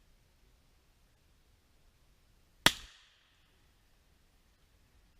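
A single gunshot from a Chiappa .22LR single-action revolver: one sharp crack about two and a half seconds in, with a short echo trailing off.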